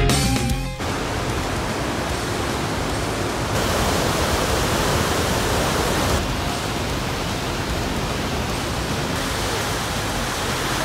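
Steady roar of a fast-flowing glacial river rushing through a narrow rock channel and over a drop in whitewater. The roar changes level slightly about three times.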